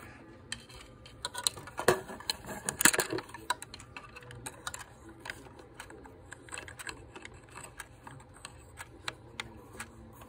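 Clicks and knocks of a miniature grandfather clock being handled as its pendulum is hung on the back, loudest about two and three seconds in, then a clock ticking steadily.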